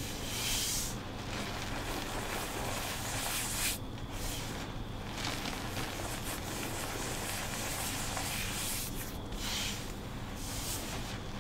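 Hands pressing, scooping and rubbing crushed reformed pink gym chalk powder: a continuous soft crunching, hissing rustle of loose powder, with a few brighter swells.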